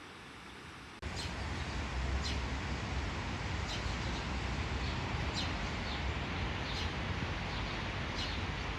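Steady hiss of falling water, then, about a second in, an abrupt change to louder steady rain with a low rumble. Over the rain a small bird calls short falling chirps, roughly one every second.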